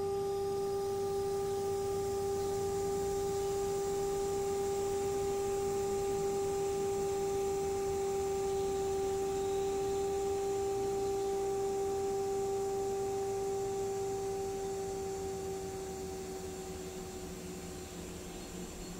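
A steady, pure sustained tone, held evenly before fading and sagging slightly in pitch near the end.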